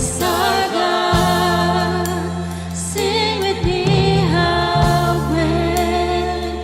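Church worship team singing a contemporary worship song, with several voices over held low chords from the band.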